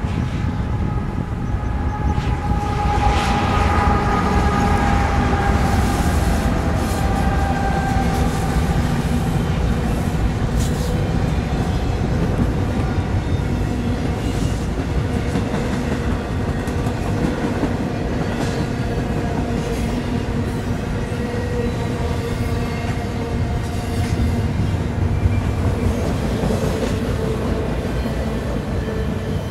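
Double-stack intermodal freight train passing close by: a steady rumble of wheels on rail. In the first several seconds the locomotives' whine falls in pitch as they go by. Wind buffets the microphone.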